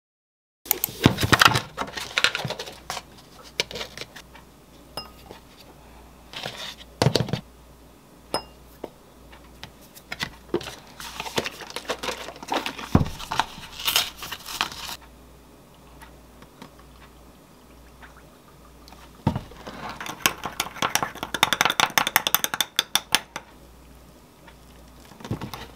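Kitchen handling sounds as a protein shake is made in a drinking glass: scattered knocks and rustles, then a spoon stirring with a quick run of clinks against the glass about twenty seconds in, with milk poured in near the end.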